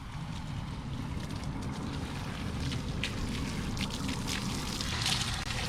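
Water running and trickling at a dog-rinse station as a dog is rinsed off after swimming in the sea, with irregular splashes over the steady flow.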